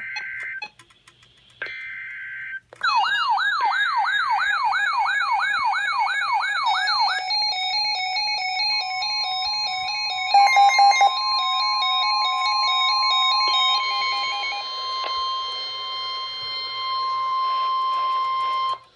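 Emergency alert audio. First come the raspy data bursts of an EAS/SAME header, then layered electronic alarm tones: a fast, repeating siren-like wail, then a stepping two-tone warble. From about nine seconds in, the steady NOAA Weather Radio warning alarm tone holds for about ten seconds, with a brief burst of loud buzzing pulses around the middle.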